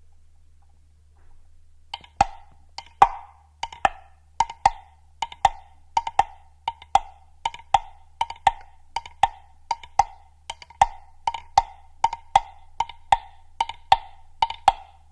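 Woodblock struck in a steady rhythm, about three sharp knocks a second, starting after a pause of about two seconds.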